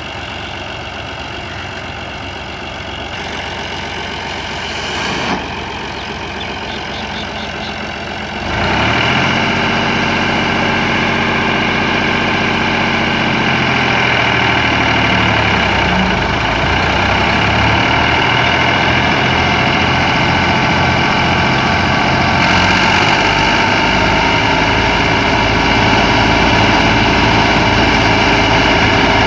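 New Holland Fiat 480 tractor's three-cylinder diesel engine running steadily at idle; about eight seconds in, the sound jumps sharply louder and, after a few seconds of shifting pitch, settles into a steady, heavier run.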